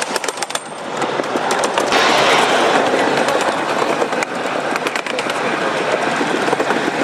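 Steady rolling rattle of a 7½-inch gauge ride-on miniature train heard from aboard, its wheels clicking over the track, louder from about two seconds in.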